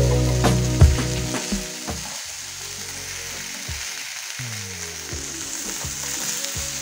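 Broccoli florets and sliced onion sizzling in hot oil in a frying pan, while a plastic spatula stirs them with short scrapes and taps against the pan. Background music fades out about two seconds in.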